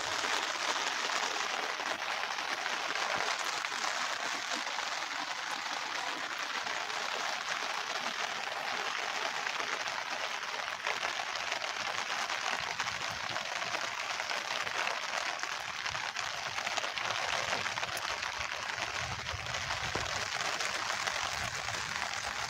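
Steady rain falling, an even hiss of countless drops.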